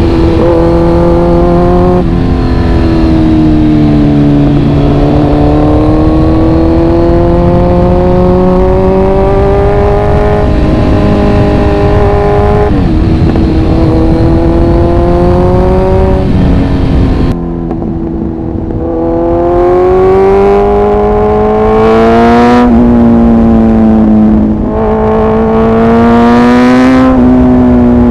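Kawasaki Z900 inline-four motorcycle engine and exhaust under way, loud. The pitch climbs under acceleration and drops sharply at each gear change, about half a dozen times. It eases off briefly just past the middle, then pulls up again.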